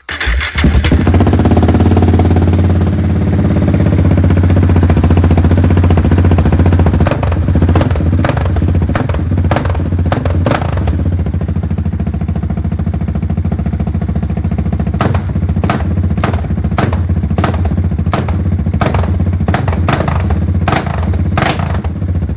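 KTM 690 Duke single-cylinder engine running with no silencer on the exhaust. It starts near the beginning, then runs steadily. From about seven seconds in, short sharp cracks come and go over the running.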